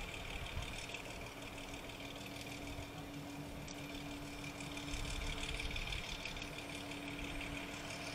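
An engine idling steadily, with a low rumble that swells briefly about five seconds in.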